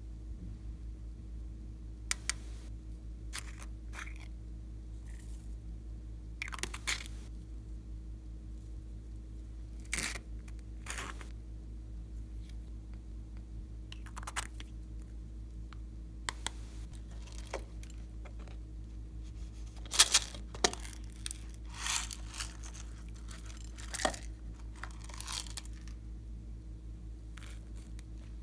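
Small plastic toy containers handled and twisted open by hand: scattered clicks, taps and crinkly rustles, the loudest cluster of clicks about two thirds of the way in, over a steady low hum.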